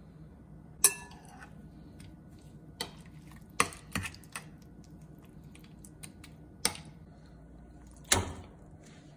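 A metal spoon clinking against a glass mixing bowl while a thick yogurt and cream marinade is stirred: seven separate sharp clinks that ring briefly, the loudest about a second in. Near the end, a metal mesh strainer knocks against the bowl's rim.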